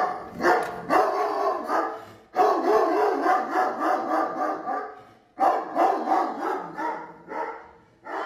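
A dog vocalizing in a run of wavering, drawn-out cries and short barks. There are a couple of quick calls in the first second, then a long cry of about two and a half seconds, and another of about two seconds that fades away.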